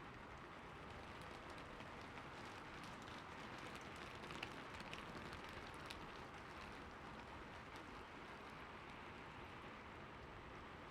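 Faint, steady rain ambience: an even hiss of falling rain with scattered drops ticking.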